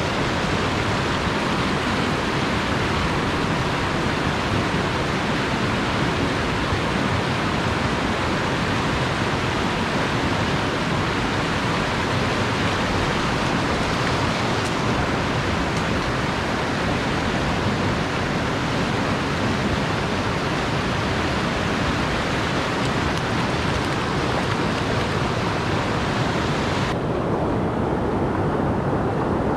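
Small mountain stream rushing over rocks through a run of rapids, a steady rush of water. A few seconds before the end the sound turns duller, with less hiss.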